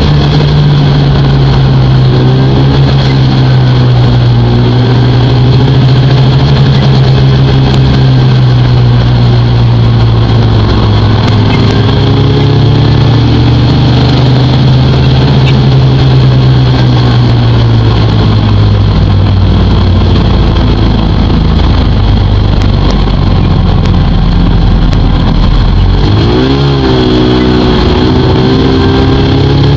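Snowmobile engine running steadily at trail speed, loud and close. Its pitch drops for a while after the middle and climbs again near the end.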